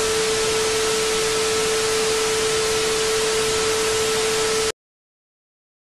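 TV static sound effect: a steady hiss with a steady mid-pitched tone running through it, which cuts off suddenly about three quarters of the way through.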